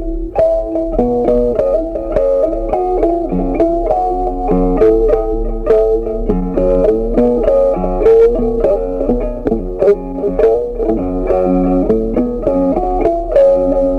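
Background music: a plucked guitar melody with bass, with no cooking sounds standing out.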